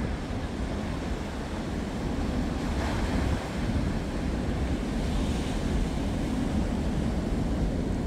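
Heavy surf breaking on a sandy beach: a steady wash of waves, swelling about three seconds in and again around five seconds. Wind rumbles on the microphone underneath.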